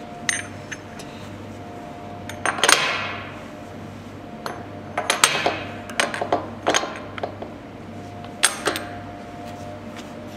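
Amada press brake running with a steady hum, with sharp metallic clanks and rings from the machine and its steel tooling: a loud ringing clank about two and a half seconds in, a burst of clanks midway, and another near the end.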